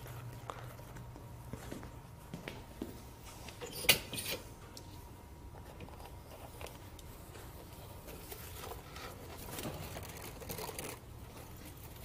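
Quiet handling noises: soft rustling and scattered small clicks of a plastic pet carrier and its door being worked, with one sharper click about four seconds in.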